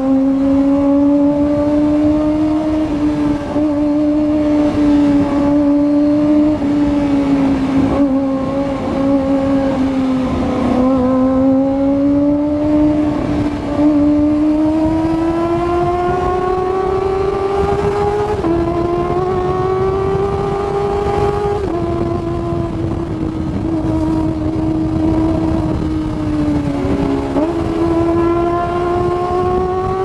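Kawasaki ZX-25R's 250 cc inline-four engine running at high revs under way, heard from the rider's helmet with wind rush underneath. Its pitch climbs slowly through the middle, dips briefly near the end and then rises again.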